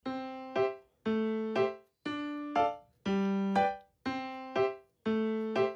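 Background music on a piano-like keyboard: a simple repeating figure of one held note answered by a second note about half a second later, once every second.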